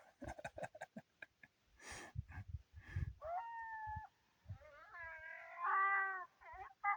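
A pack of coyotes howling and yipping: scattered short sounds first, then a held howl about three seconds in, followed by several wavering voices overlapping, loudest near the end.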